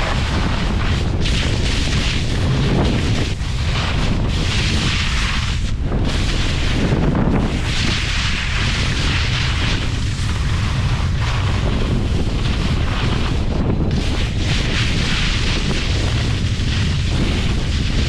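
Strong wind buffeting the microphone: a loud, continuous low rumble with a rushing hiss that swells and fades, as in a fast run downhill.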